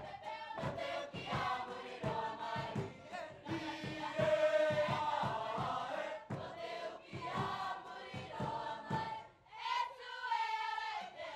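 Mixed choir of men and women singing a Cook Islands song together in harmony, over a steady beat of sharp percussive strikes. The singing dips briefly about nine seconds in, then comes back.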